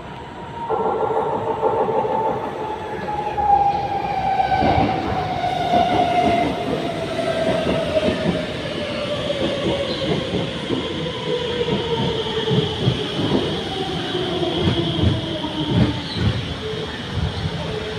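R151 metro train's electric drive whining steadily down in pitch as it brakes into the station, with its wheels clattering over the rail joints.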